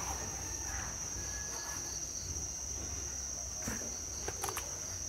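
Crickets chirring in a steady high-pitched drone, with a few faint knocks a little past halfway.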